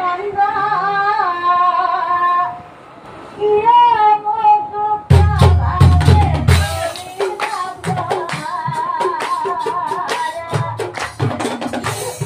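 A woman singing a Nagara Naam devotional song, holding long wavering notes with no accompaniment, with a brief pause near three seconds. About five seconds in, deep nagara drums and sharp percussion strikes come in with a fast beat under her singing.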